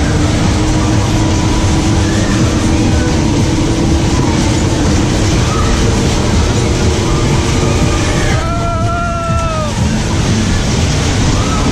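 Heavy wind rumble on the microphone with fairground music behind it. About eight and a half seconds in comes one short whooping cry that rises and then falls.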